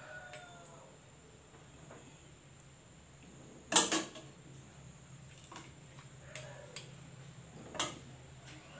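Metal ladle knocking against a stainless-steel pot as soup is scooped into a bowl: two sharp clinks about four seconds apart, a few lighter taps between, over a faint low hum.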